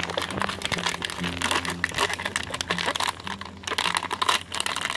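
A thin plastic water bottle crinkling as ice chunks are shaken out of it into a tray of çiğ köfte mixture, with a dense run of crackles and clicks.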